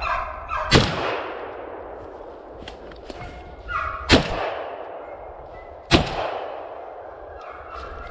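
Three shotgun shots, each followed by a long echo that rolls away. The first comes about a second in, the second about four seconds in and the third under two seconds after that.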